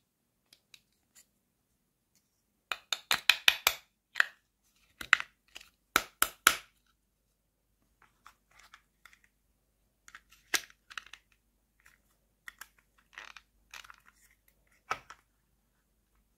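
Hard plastic toy food pieces clicking and clattering as they are pulled apart and stacked into a toy burger on a plastic tray. Rapid clicks come in clusters about three seconds in and again around five to six and a half seconds, then lighter scattered taps.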